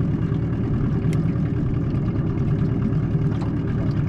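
A boat's outboard motor running steadily while trolling, a low, even drone.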